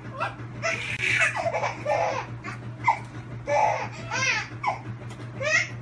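A baby laughing and squealing in a string of short, high-pitched bursts, over a steady low hum.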